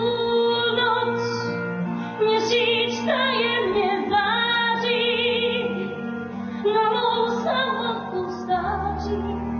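A woman singing a slow musical-theatre melody over sustained instrumental accompaniment, holding long notes with vibrato.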